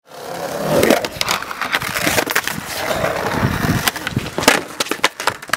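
Skateboard wheels rolling fast over concrete, a continuous rough rumble broken by sharp clacks and knocks of the board, the loudest about four and a half seconds in as the skater bails and hits the ground.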